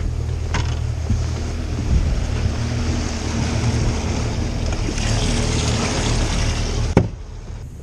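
Pontoon boat's outboard motor running steadily, with water churning in its wake and wind on the microphone. A sharp knock comes near the end, and the sound then drops away.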